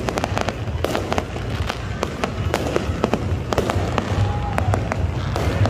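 Fireworks going off overhead: a rapid, irregular string of sharp cracks and bangs from aerial bursts.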